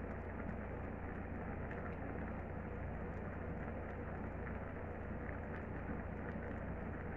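Gas stove burner running under a pot of simmering pechay: a steady rushing noise with a low rumble and faint scattered ticks.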